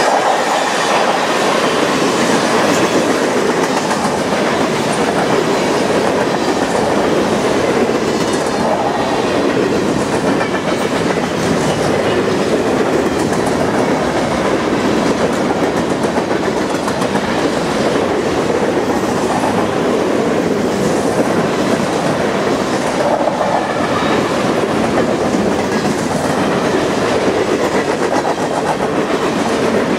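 Covered hopper grain cars of a freight train rolling past: a steady clatter of steel wheels on the rails, with repeated clicks as the wheels cross rail joints.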